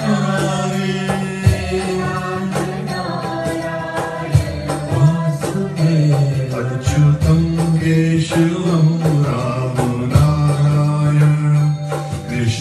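A man sings a Hindu devotional bhajan to Krishna in long held, gliding notes into a microphone. Scattered sharp percussive taps sound behind the voice.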